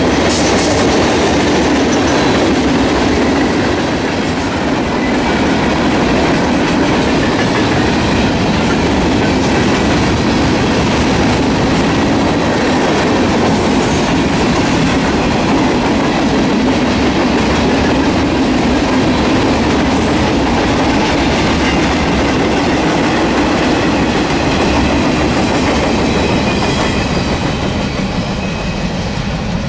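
Freight train hopper cars and boxcars rolling past close by: a loud, steady rumble of steel wheels on rail that barely changes.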